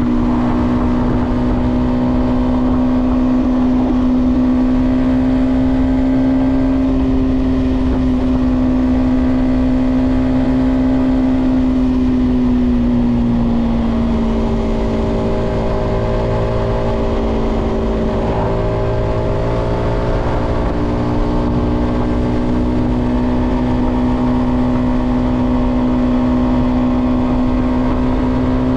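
Yamaha XSR125's single-cylinder four-stroke engine running at steady cruising revs under way, its note dropping slightly about twelve seconds in and rising back around twenty seconds, over a low rush of wind and road noise.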